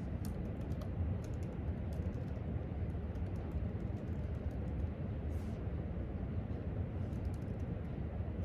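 Light typing on a laptop keyboard in a few short runs of quick clicks, over a steady low background hum.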